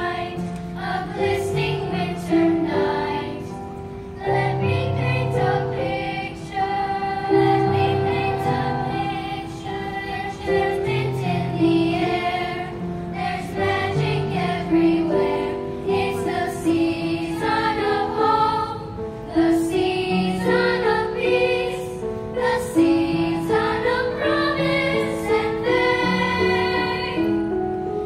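A children's choir singing a song together through microphones, with sustained low accompaniment notes under the voices.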